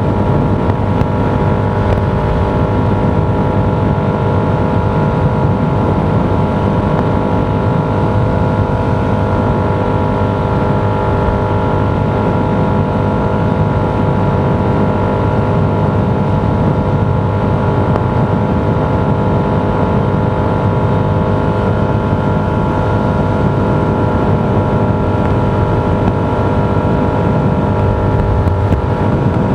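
Steady road noise of a vehicle cruising, with a constant hum running under it.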